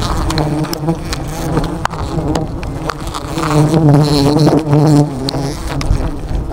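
A swarm of disturbed honeybees buzzing close around the microphone: a dense, wavering drone that swells in the middle, with a few sharp clicks among it.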